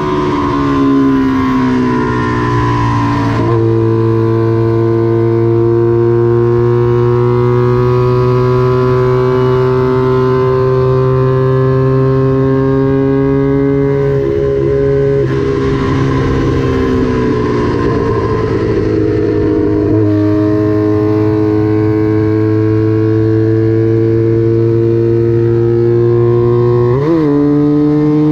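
Small vintage racing motorcycle engine, a parallel-twin of the Honda CB/CL160–175 kind, held at high revs under full throttle. Its pitch climbs slowly along the straights and drops sharply a few times: about 3 s in, about 15 s in and about 20 s in. A quick rev blip near the end marks a downshift.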